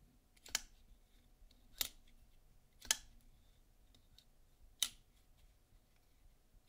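Kunwu Pulsar folding knife being flicked open and snapped shut: four sharp metallic clicks over about five seconds as the blade locks and closes under its newly fitted, stronger springs.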